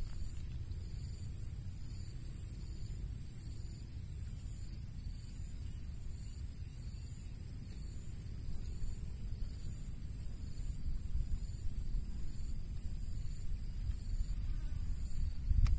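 Insects chirring steadily in a high, evenly pulsing drone, over low wind rumble on the microphone that grows a little stronger in the second half. There is a single sharp click near the end.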